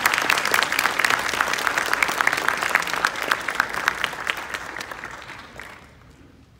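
Audience applauding, many hands clapping at once, dying away about five to six seconds in.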